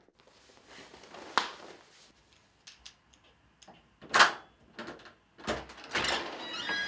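Front door being unlocked and opened from outside: a series of separate clicks and knocks from the lock and handle, the loudest about four seconds in, then the handle going down and the door starting to open near the end.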